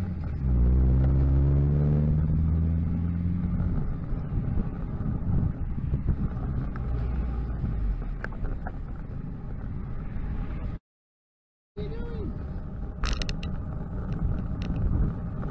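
Box van's engine accelerating close alongside as it overtakes, rising in pitch over the first few seconds, then steady road and wind noise as it draws ahead. The sound cuts out completely for about a second past the middle.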